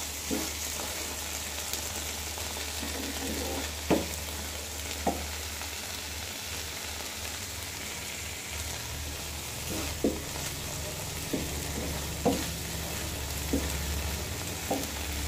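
Spinach paste sizzling in a non-stick frying pan with a steady hiss, while a wooden spatula stirs it. The spatula knocks and scrapes against the pan every second or so in the second half.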